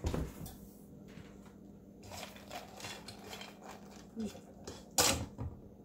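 Raw pumpkin seeds being scooped from a pumpkin by hand and picked through in a pan: a thump at the start, scattered scraping and rustling, and a sharp knock about five seconds in.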